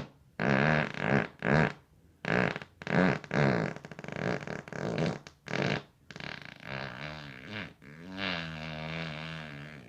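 A string of fart sounds: about ten short pitched blasts in quick succession, then a longer wavering one and a long drawn-out fart to finish.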